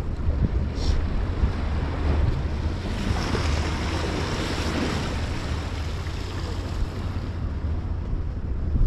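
Wind buffeting the microphone over the sea's surf, with the wash of the waves swelling about three seconds in.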